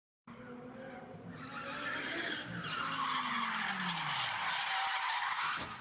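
A car's engine revs and falls in pitch. Then its tyres screech loudly for about three seconds as it skids, and the screech stops sharply near the end.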